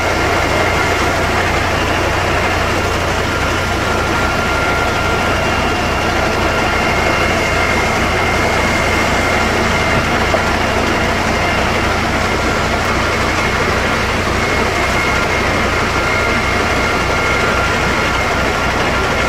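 Fire engine's diesel engine running steadily to drive its water pump while hoses are in use, a low even throb under a dense rush, with a thin steady whine on top.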